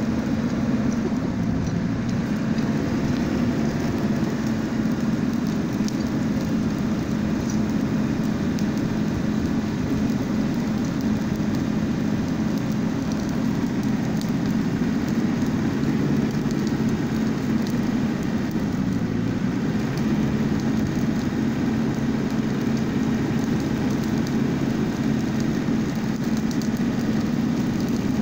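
Pickup truck engine running steadily, its exhaust pipe blowing at close range into a small charcoal fire to fan it, with faint crackles.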